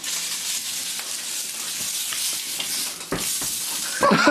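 Food sizzling in a frying pan, a steady hiss, with a single knock about three seconds in and a voice starting near the end.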